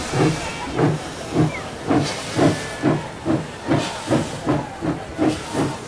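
Steam locomotive chuffing as it pulls out, each exhaust beat a low thump with a burst of steam hiss, the beats picking up pace from about two to nearly three a second.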